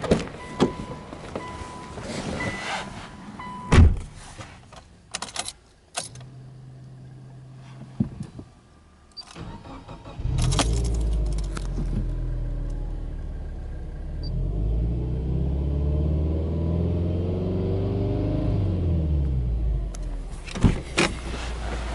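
Key and door handling clicks with a steady beeping chime. About ten seconds in, the Subaru Legacy 2.0GT spec.B's turbocharged 2.0-litre flat-four cranks and catches. It settles into a fast idle on a cold engine, its pitch rising and falling slowly.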